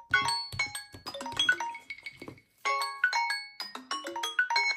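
Samsung phone alarm and timer ringtones playing a quick melody of marimba-like notes, breaking off about two and a half seconds in and starting again a moment later.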